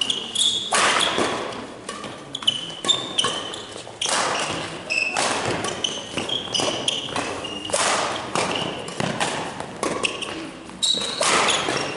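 Badminton rally: sharp racket strikes on the shuttlecock and thuds of players' feet landing, mixed with short high squeaks of court shoes on the sports-hall floor.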